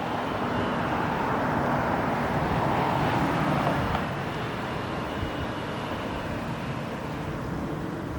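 A passing engine: a steady rumble that swells from about a second in and eases off after about four seconds.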